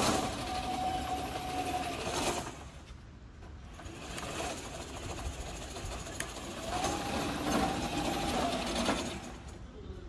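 Remote-controlled tracked flail mower driving on its electric track motors and worm-gear reducers, the petrol engine not yet running: a steady motor whine for about two seconds, a quieter spell, then the whine again from about two-thirds in, rising briefly in pitch as it sets off.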